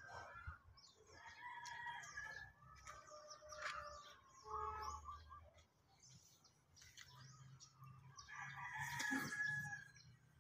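A rooster crowing faintly several times, the longest crow near the end, with small birds chirping.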